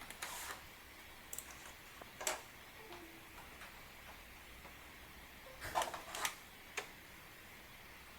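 Light handling clicks and knocks as a gaming keyboard and mouse are plugged in, about half a dozen sharp ticks spread out, with the loudest cluster near the end.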